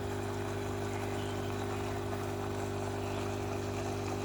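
Steady electric hum from an aquarium pump, with a constant low buzz and faint hiss.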